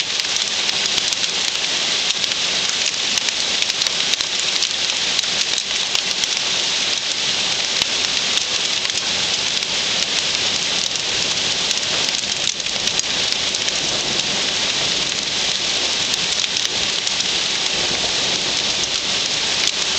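Hailstorm: dense hail falling and striking hard surfaces, a steady clatter of countless small clicks over a constant hiss.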